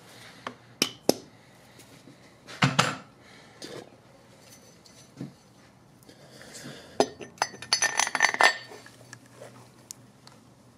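Steel pieces of a cam bearing puller tool clinking and rattling against each other and the engine case as the tool is put together. There are a few sharp separate clinks in the first three seconds and a denser run of ringing metal clinks about seven seconds in.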